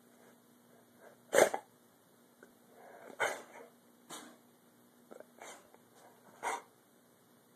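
A dog giving short, sharp barks, about five in all, the loudest about a second and a half in.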